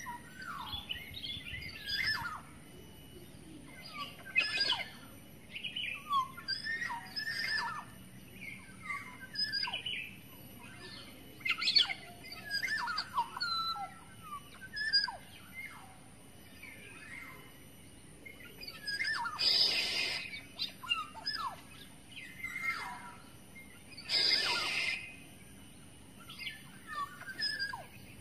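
Black-naped oriole (kepodang) singing and calling: a busy run of short whistled notes and slurred phrases. Two longer, noisier sounds come about twenty and twenty-four seconds in.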